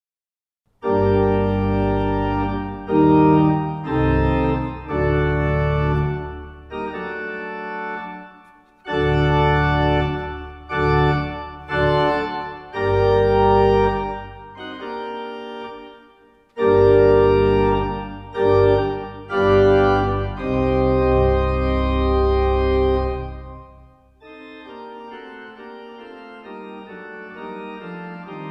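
Organ music: full sustained chords played in phrases with short breaks between them, starting about a second in and turning softer near the end.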